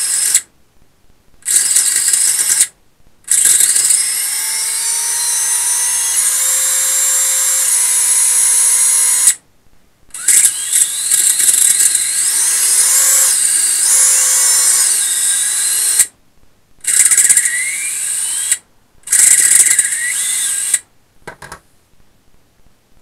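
Emax RS2205 2300kv brushless motors of a racing quad spinning with no propellers fitted, throttled from the transmitter: a high whine that rises, steps and falls in pitch, cutting out and restarting several times before stopping near the end.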